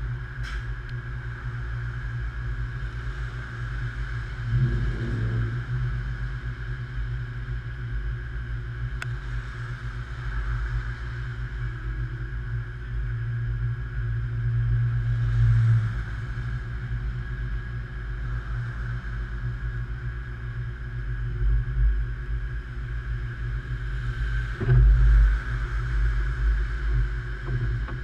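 Steady low rumble of road traffic, swelling briefly a few times as vehicles pass.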